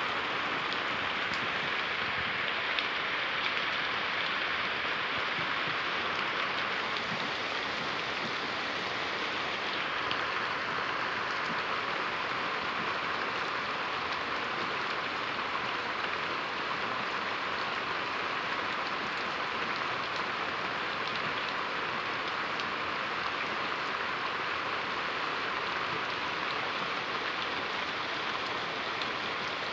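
Torrential rain pouring steadily onto wet ground and fallen leaves, a dense, even hiss of drops.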